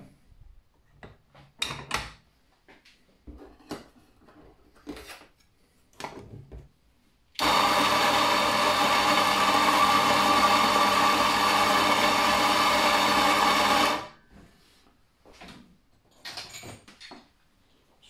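Gaggia MDF espresso grinder's motor and flat burrs grinding coffee beans on a test run after restoration. It is a steady, loud hum that starts abruptly about seven seconds in and cuts off after about six and a half seconds. Light clicks and knocks from handling the grinder come before and after.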